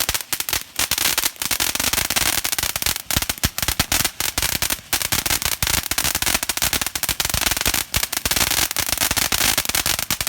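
A string of firecrackers going off: a rapid, unbroken crackle of sharp pops, many per second, that cuts off abruptly at the very end.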